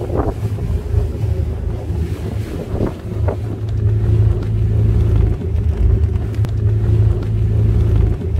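Passenger ferry's engines running with a steady low drone while under way, with wind buffeting the microphone on the open deck.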